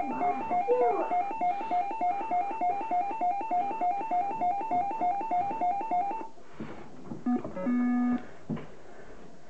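A True Grip Challenge grip-strength tester's electronic sound chip beeping in a fast, repeating two-note pattern while the grip test is in progress, stopping about six seconds in. After a short pause it plays a brief electronic jingle with a low buzz as the final grip score comes up.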